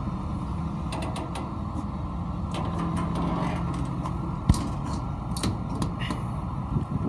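Utility-bed compartment door and latch being handled: scattered light clicks and creaks, with one sharp click about four and a half seconds in, over a steady low rumble.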